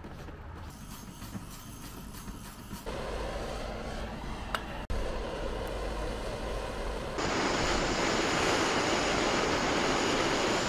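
Street ambience with traffic for the first few seconds. Then a gas blowtorch hisses steadily, loudest over the last few seconds, as it melts metal in a small crucible around the end of a window-regulator cable.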